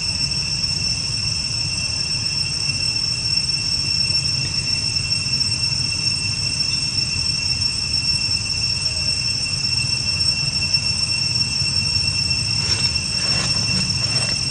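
Insects droning outdoors: a steady high-pitched whine that holds one pitch throughout, over a low rumble.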